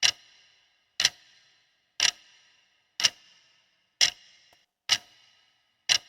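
Countdown-timer clock-tick sound effect: six sharp ticks, each with a short bright ring, one a second, marking the time left to answer a quiz question.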